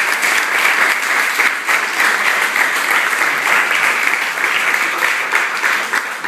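Audience applauding: many people clapping in a steady, dense patter of claps.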